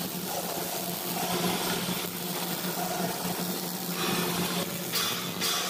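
Arc welding on a steel bar grating: the crackling, frying hiss of the welding arc, stronger and coming and going in the last couple of seconds, over a steady low hum.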